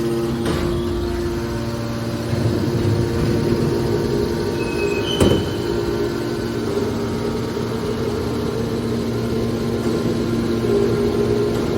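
Hydraulic metal scrap baler running: a steady machine hum from its motor and hydraulic pump, with a single sharp clank about five seconds in.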